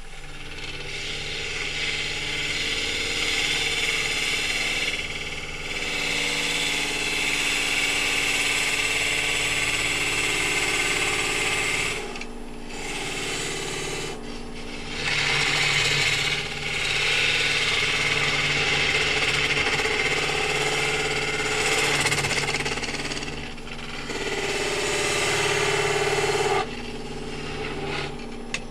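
A wood lathe spinning a wet poplar log while a turning tool cuts into it, hollowing out a lampshade and shaving off long wet ribbons. The cutting sound breaks off briefly a few times and stops near the end, leaving the lathe's hum.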